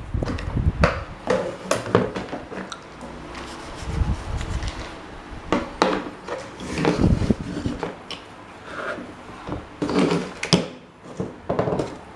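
Irregular knocks, clinks and rubbing of tools and fan parts being handled during restoration work, in uneven bursts with short pauses between them.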